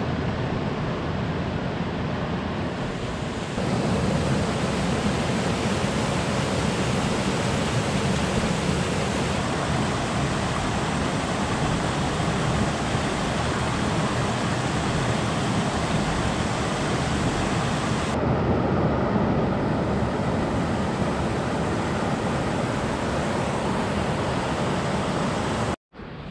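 Rushing water of a rocky river pouring over boulders and small cascades: a steady, loud water noise whose tone shifts a little twice, then cuts off abruptly near the end.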